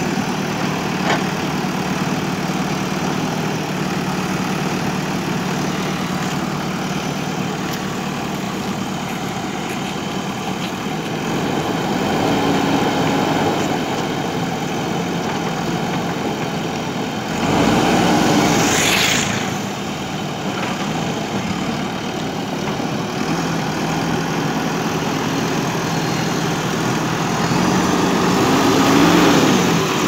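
JCB 3DX backhoe loader's diesel engine running steadily close by. About two-thirds of the way through it gets briefly louder with a fast rising whine, and it swells again near the end.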